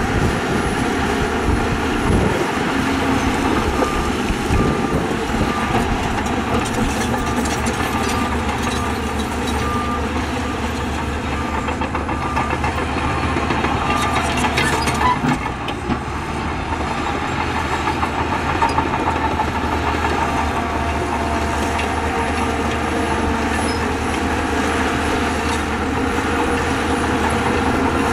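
Diesel engines of Shantui bulldozers and dump trucks running steadily under load, with a reversing alarm beeping steadily through the first half and again near the end.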